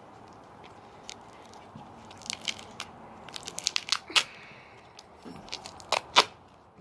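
Duct tape being peeled and pulled off: a run of sharp crackles and snaps, thickest around three to four seconds in, with a few louder snaps near the end.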